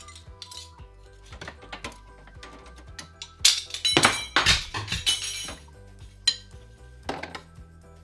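Dishes and cutlery clinking and clattering against the wire racks of a countertop dishwasher as it is loaded, loudest in a run of clatters around the middle. Background music plays underneath.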